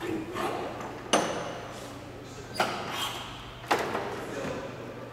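Hood catches on a 1932 Auburn 8-100A speedster being undone by hand: three sharp metallic clicks a second or so apart, with light handling noise between them.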